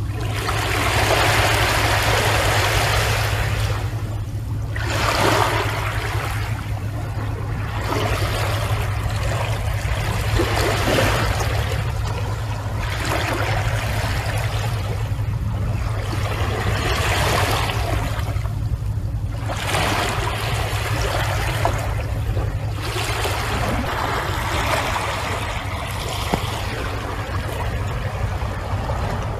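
Water ambience of sea waves washing in and out, swelling and fading every three to four seconds, over a steady low hum.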